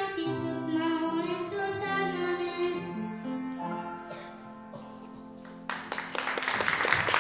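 A girl singing with upright piano accompaniment: her last sung note ends about three seconds in and the piano chord rings on. Near the end, applause breaks out and becomes the loudest sound.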